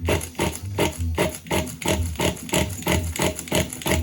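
Pull-starter of a 3.0 nitro RC car engine being yanked over and over in quick rasping strokes, about five a second. The engine turns over but does not catch.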